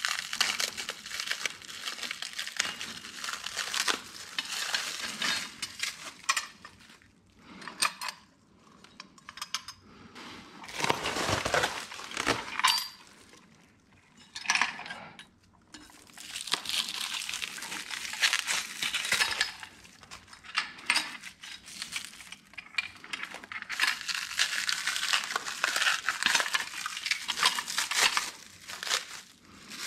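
Plastic wrap crinkling and crackling as it is cut with scissors and peeled off aluminum wagon parts, with clinks of the aluminum tubes and brackets being handled and one heavier knock about a third of the way through.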